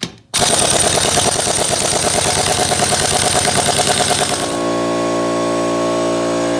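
Pneumatic impact wrench hammering in a fast rattle for about four seconds on a stuck brake fastener that won't break loose, with the air supply running low. A steady machine hum then takes over.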